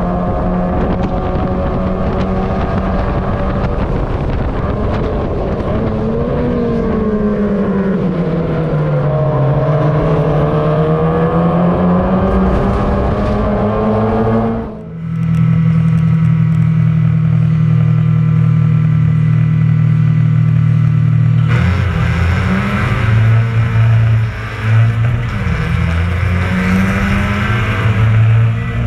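Mazda MX-5 race car's four-cylinder engine heard onboard at racing speed, its note climbing and falling with throttle and gear changes. About halfway the sound drops sharply, then holds a steady note for several seconds before switching back to a brighter note that rises and falls.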